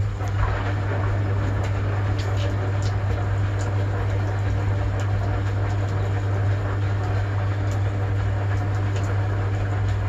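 1960 Constructa K5 front-loading washing machine running a wash phase: its electric motor gives a loud, steady mains hum over the rushing of sudsy water churned in the drum.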